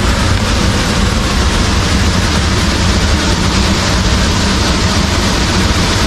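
Steady rushing, rumbling noise of wind buffeting the microphone outdoors, heaviest in the low end.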